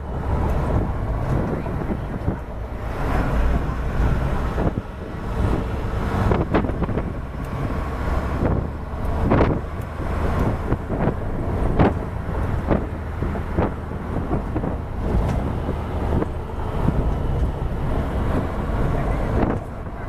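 Steady low rumble of a moving vehicle, with wind buffeting the microphone.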